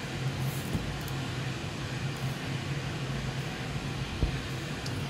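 A steady machine hum with an even hiss, like a fan running, with a soft low thump a little after four seconds in.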